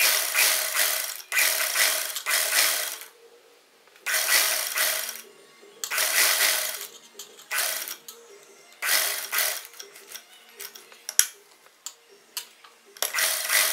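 Sewing machine stitching in short runs of about a second each, stopping and starting some eight times as the collar seam is guided and turned at its corners. A single sharp click a little after 11 seconds.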